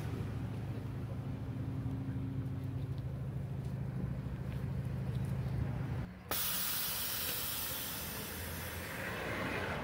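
A steady low hum for about six seconds, then, after a sudden break, a loud steady hiss of escaping air from a car's air-ride suspension being let down.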